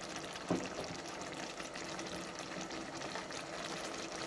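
Lemon pan sauce simmering around pan-fried chicken breasts in a skillet on low heat, a soft, steady crackling sizzle. One light knock of the tongs comes about half a second in.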